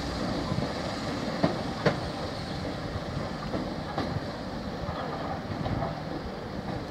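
An electric multiple unit train rolling slowly through the station, its wheels clicking over rail joints, the running noise slowly fading.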